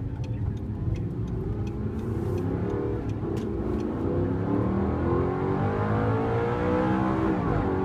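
Audi R8's 4.2-litre V8 accelerating hard, heard from inside the cabin: the engine note climbs in pitch several times, dipping between each climb as it changes up a gear, the last change shortly before the end.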